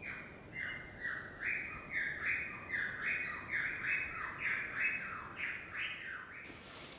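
A bird calling: a long run of harsh notes, each falling in pitch, about two a second.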